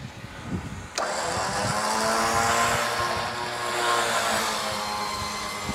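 Jeep's electric winch motor whining steadily as it hauls in its cable, dragging the stuck mower out of the swamp. It starts suddenly about a second in.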